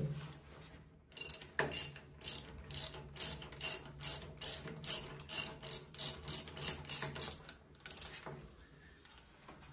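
Ratchet handle with a 17 mm socket clicking in a steady run of about three clicks a second as it unscrews a shower valve stem. The clicking stops about eight seconds in.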